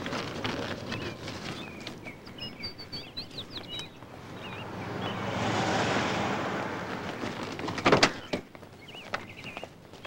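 Street ambience: small birds chirping, then a car passing, its tyre and engine noise swelling and fading, and a sharp clunk near the end as the taxi's door is opened.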